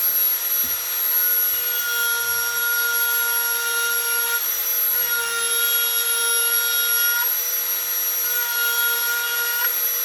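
Small high-speed rotary carving tool (hand router) running and cutting into wood, a steady high whine over a rasping hiss, its pitch shifting slightly now and then as it bites.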